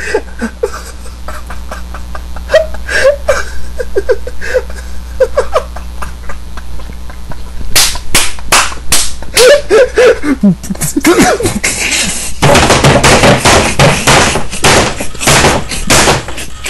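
A man laughing close to a low-quality webcam microphone: short stifled snickers at first, growing louder and denser in the second half, mixed with sharp clicks and smacks, over a steady low electrical hum.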